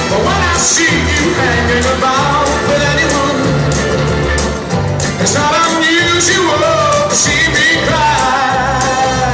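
Loud music with a singer over a steady, repeating bass beat.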